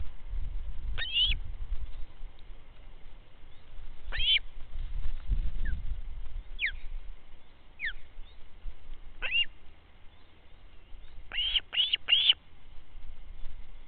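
A bird calling in short, high chirps, about eight in all, three of them in quick succession near the end, with dull low rumbling noise now and then between them.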